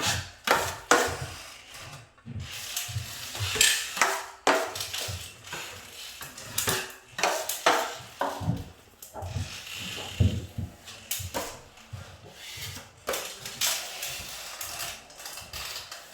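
Metal drywall finishing tools working joint compound by hand: irregular clinks, taps and short scrapes of steel blades against a mud pan and the wall.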